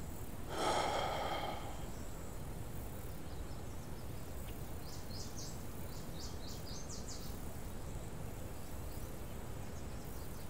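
Steady rural outdoor ambience with small birds chirping in scattered short calls around the middle. A short breathy exhalation, like a sigh, comes about half a second in.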